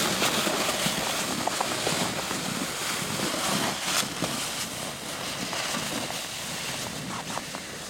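Plastic sled sliding and scraping over snow, with boots crunching through it as the sled is towed, growing fainter after about six seconds as it moves away.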